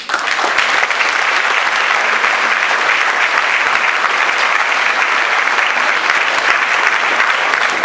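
Audience applause: many people clapping, dense and steady.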